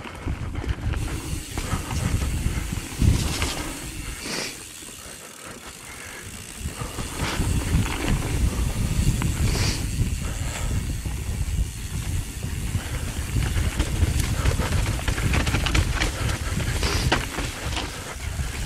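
Mountain bike rolling fast down a muddy dirt trail, with wind rumbling on the microphone and the bike's chain and frame rattling and clunking over bumps. The rear tire is flat, riding on a Tannus Armor foam insert. The noise eases briefly about five seconds in, then picks up again.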